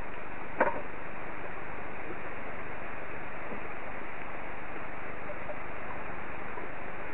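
Steady hiss of pouring rain picked up by a garden security camera's microphone, with a single sharp knock about half a second in.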